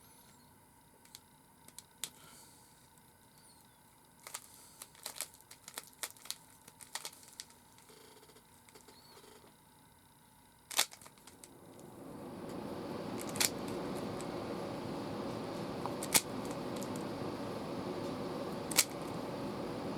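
Plastic clicks and clacks of a Rubik's Cube being turned: a quick run of small clicks a few seconds in, then single sharper clicks every few seconds. About twelve seconds in, a steady rushing noise comes up and holds under the clicks.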